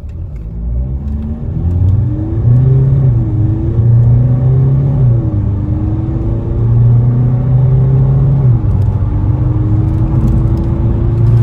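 VW Polo 1.6 TDI four-cylinder diesel accelerating hard through the gears of its DSG automatic gearbox. The engine note climbs steadily and drops back at each quick upshift, three times.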